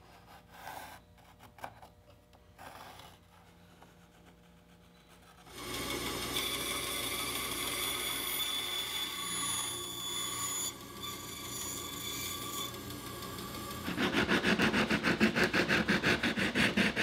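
Faint pencil scratching on plywood at first. About five seconds in, a band saw runs steadily, cutting a curved round-over in half-inch Baltic birch plywood. Near the end comes quick back-and-forth hand sanding of the cut edge, about four or five strokes a second.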